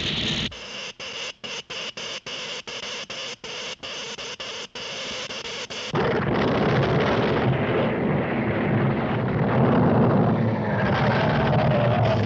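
Cartoon sound effects of an electric earthquake machine: a hissing electrical crackle broken by rapid short cut-outs for about six seconds, then a sudden loud, dense rumble of the quake.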